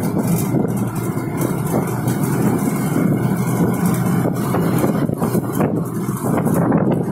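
Steady riding noise from a moving motor scooter: the engine running under wind buffeting the microphone.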